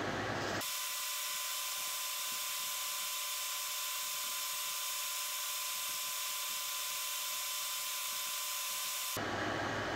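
A steady, high-pitched whirring hiss with a faint hum, like a small motor, that cuts in just after the start and stops abruptly about a second before the end.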